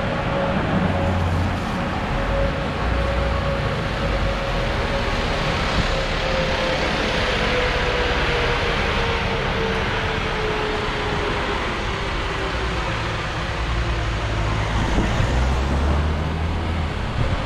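A Wrightbus StreetDeck double-decker bus on the move, with its Daimler OM936 six-cylinder diesel and drivetrain running under steady road noise. A thin whine slowly drops in pitch through most of the stretch.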